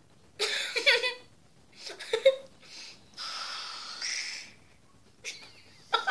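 Air blown through a drinking straw into a lump of slime to inflate it: breathy puffs, the longest a steady hiss of about a second, with a squeaky burst near the start. A child's laugh near the end.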